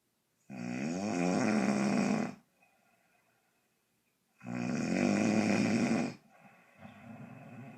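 A sleeping woman snoring loudly: two long snores, each about two seconds and about four seconds apart, followed by a quieter breath near the end.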